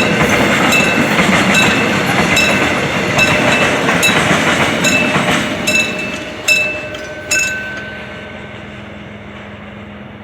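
Cement freight train rolling past a level crossing, its noise fading toward the end. The crossing's warning bell rings in regular strikes, a little under one a second, and stops about seven seconds in.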